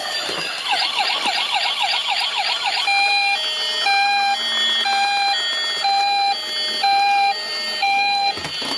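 Toy police car's electronic siren: a fast warbling wail for about the first three seconds, then a two-tone hi-lo siren alternating about once a second, with the fast warble coming back near the end.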